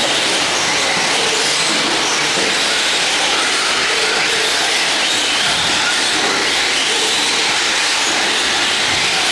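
Radio-controlled race trucks running on a track: a steady, dense noise with faint pitches that waver up and down.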